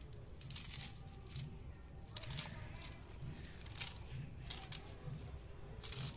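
Fresh spinach leaves being torn and snapped from their stems by hand, with several short crisp rustles and snaps a second or so apart. Crickets chirp faintly behind.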